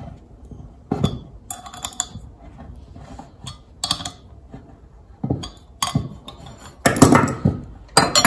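Irregular metallic clinks and clanks of a wrench working on steel bolts as they are tightened, with a louder flurry of clanking about seven seconds in.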